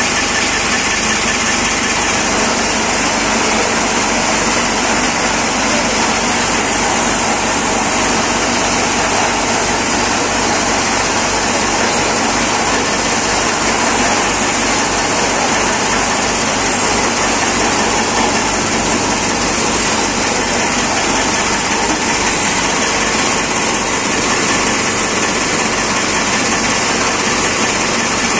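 Tractor-PTO-driven chaff cutter running steadily together with the tractor's engine, chopping green fodder as it is fed in.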